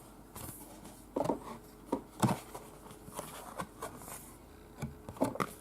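A few scattered soft taps and knocks of fingers pressing on a book's page, some of them close together.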